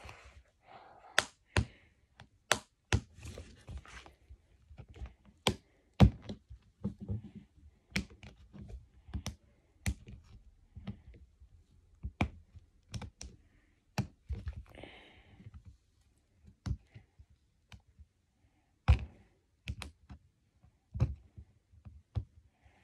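Irregular clicks, taps and knocks of fingers and nails on a hard plastic toy egg as it is handled and picked at to open it, with soft rustling between.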